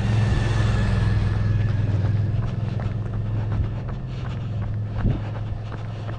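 A motor vehicle's steady low engine hum, loudest in the first couple of seconds and then easing off as the vehicle passes.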